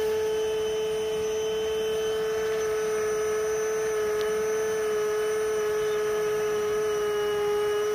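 Bucket-style bee vacuum running steadily with a constant whine, drawing yellow jackets out of a crack in a barn wall through a long hose.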